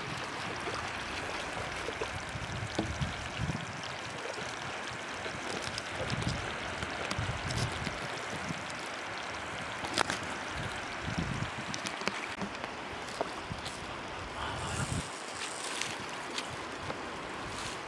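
Shallow seawater washing steadily over a sandy beach, with low gusts of wind on the microphone and a few sharp clicks of handling, the loudest about ten seconds in.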